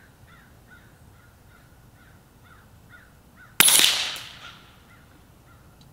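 A single shot from a .30-calibre Brocock Ghost PCP air rifle a little past halfway through: one sharp crack that dies away over about a second. Faint, short bird calls repeat throughout.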